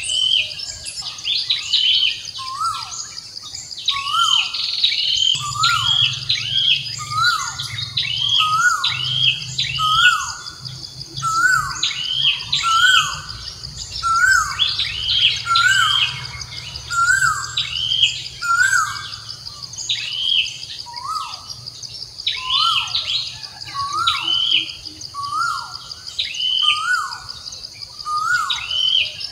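High-pitched animal calls repeated about once a second, each rising then falling, over a steady high insect buzz.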